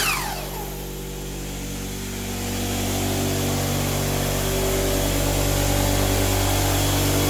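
Electric miter saw motor spinning down after release, its whine falling quickly in pitch within the first half second. An electric air compressor keeps running steadily underneath, its hum growing louder from about two seconds in.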